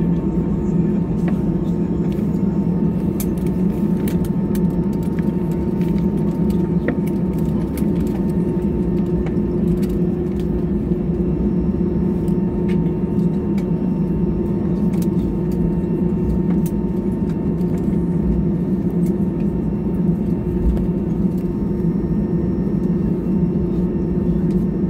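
Airbus A320-214's CFM56 engines at idle thrust while taxiing, heard inside the cabin: a steady deep drone with a faint whine, and scattered light clicks.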